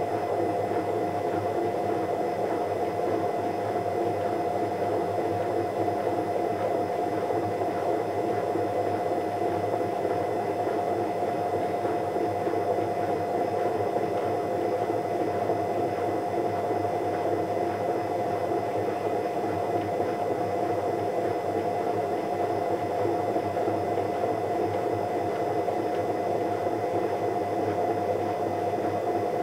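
Steady, unchanging machine hum: a constant mid-pitched tone over a dense hiss.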